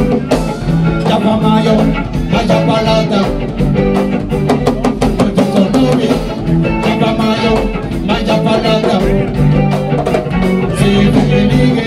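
A live band playing an up-tempo West African groove: electric guitars over drum kit and hand drums, with a bass line under a fast, steady beat.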